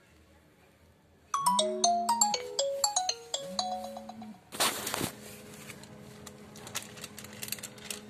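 A mobile phone ringtone plays a short electronic melody of quick stepped notes over a low note that slides up into place twice, lasting about three seconds. It is followed by a brief loud rush of noise, then a low steady hum with scattered small clicks.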